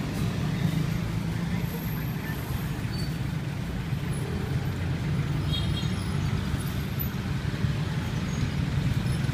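Steady low rumble of street traffic and running motor engines.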